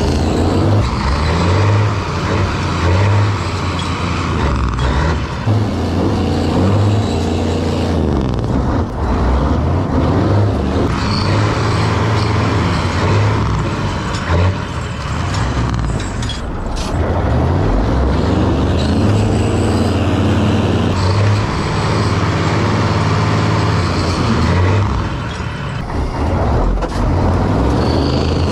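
A Ford diesel pickup's engine is running hard under load as it tows a stuck truck out. The revs rise and fall several times.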